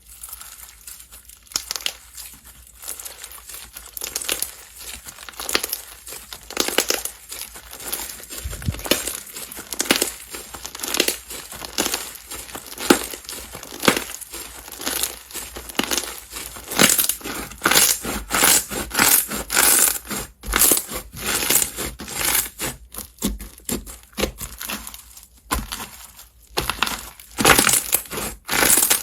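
Slime being squeezed, pressed and pulled by hand: a continual run of crackling, popping and squishing clicks, growing denser and louder about halfway through.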